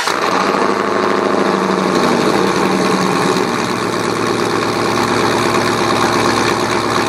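Pickup truck engine with a loud aftermarket exhaust idling steadily, right after catching on a cold start. It is pretty loud.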